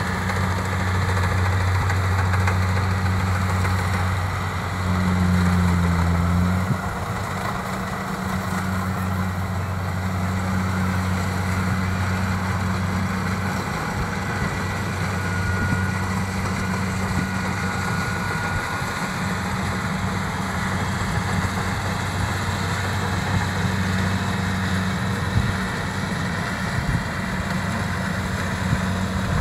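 Kubota DC-70 rice combine harvester's diesel engine running steadily as it harvests. There is a steady hum, which swells briefly about five seconds in and then settles.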